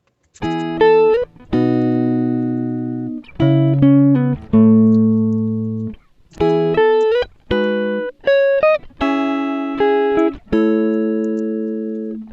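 Background music: a slow guitar melody of held notes that slide into one another, in short phrases.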